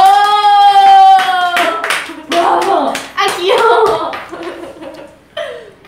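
Young women's voices: one long sung note, dipping slightly in pitch over about a second and a half, with hands clapping through it. Then excited talk and laughter with a few more claps.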